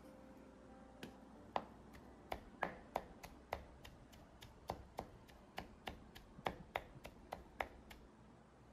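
Kitchen knife chopping defrosted shepherd's purse on a wooden cutting board: a run of sharp, irregular knocks of the blade on the board, about three a second, starting about a second in and stopping shortly before the end.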